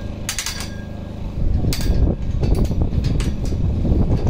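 A series of sharp, irregular metallic knocks and clanks, typical of hammering and knocking together steel greenhouse truss parts, some strikes briefly ringing. A low steady rumble runs underneath.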